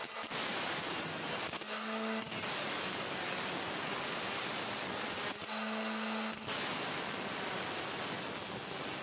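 Angle grinder with a cut-off disc cutting through a steel threaded rod: a steady grinding sound of the disc in the metal, broken twice for about a second where the disc spins free between cuts and the motor's hum shows through.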